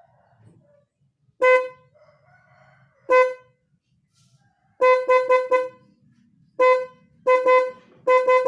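Snail-type electric horn sounding short toots of one steady pitch, some single and some in quick runs of several.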